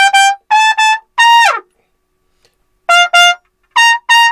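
Trumpet playing a short phrase of repeated notes in pairs, climbing step by step. The first phrase ends on a held note that falls away in pitch. After a pause of over a second the phrase starts again. The tone is full and open, which the player calls very big and broad.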